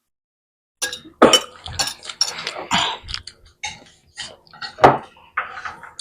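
Cutlery clinking and scraping against dishes at a meal: a quick run of sharp clicks and knocks that starts about a second in, with the loudest knocks near the start and again just before five seconds.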